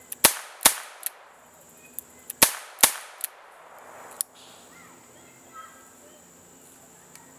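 H&R 922 .22 LR nine-shot revolver firing four shots in two quick pairs, the shots within each pair about half a second apart and the pairs about two seconds apart, followed by a few fainter cracks.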